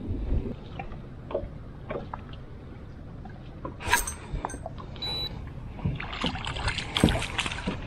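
Scattered knocks and clatter of handling on a small fishing boat. There is a low rumble at the start, a sharp knock about four seconds in, and a quick run of clicks and rattles near the end.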